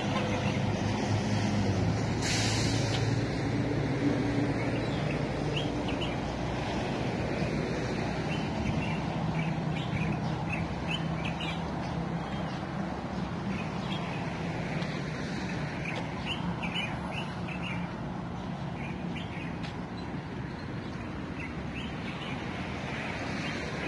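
Outdoor ambience: small birds chirping now and then over a steady low traffic hum, with a brief hiss about two seconds in.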